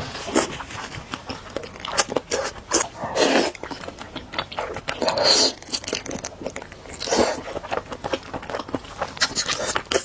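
Close-miked eating of spicy noodles: wet mouth clicks and chewing throughout, broken by a few louder half-second slurps of noodles.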